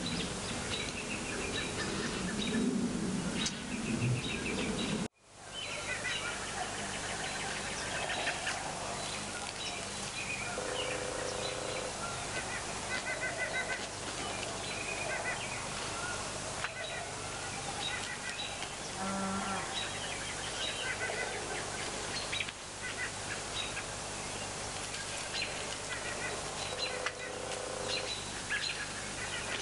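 Birds chirping and calling in overlapping short calls, with the sound cutting out briefly about five seconds in.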